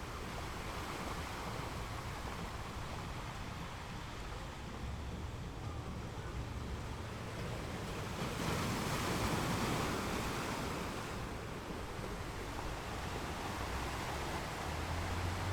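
Sea waves breaking and washing over a rocky shore, a steady rushing wash that swells with a larger wave about eight seconds in, over a low rumble.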